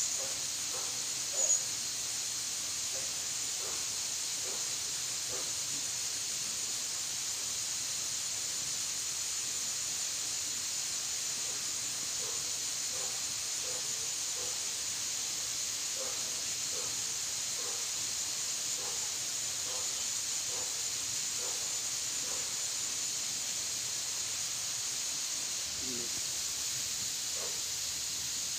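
Steady high-pitched drone of a tropical insect chorus, with faint short chirps scattered beneath it and one brief sharp sound about a second and a half in.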